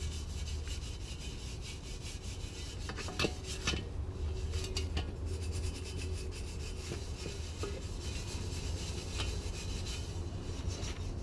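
Medium-stiffness brush scrubbing the acid-sprayed metal exhaust pipe of a dirt bike: a continuous scratchy rubbing, with a few sharp knocks a little past three seconds in, over a steady low hum.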